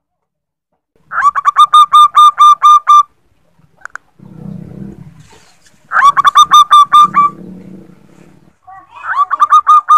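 Female zebra dove (perkutut) calling: three bursts of rapid, clipped notes, about six a second, the call a female uses to draw males. Between the bursts there is a fainter, lower sound.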